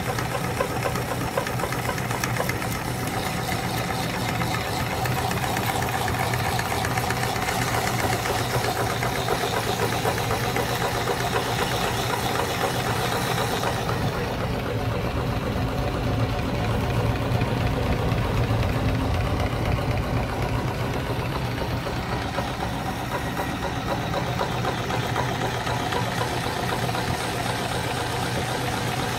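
Electric meat grinder running steadily under load, its motor humming as the auger grinds frozen ice cream bars through the plate.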